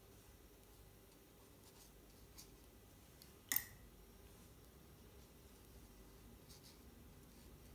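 Quiet room with a few faint light taps, and about three and a half seconds in a single sharp click with a brief ring, a hard small object knocking while painting tools are handled.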